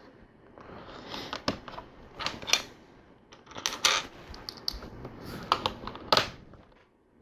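Small plastic LEGO pieces clicking and clattering against each other and the table as they are handled and moved, in irregular sharp clicks with some rustling between them.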